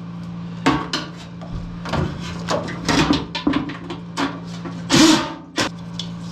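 Metal knocks and clanks from handling and unfastening an old furnace blower motor assembly, a string of sharp separate hits with a longer scrape about five seconds in, over a steady low hum.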